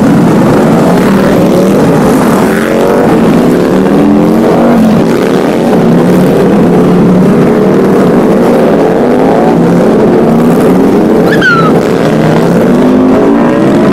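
Motorcycle engines running on the road, their pitch slowly rising and falling as speed changes.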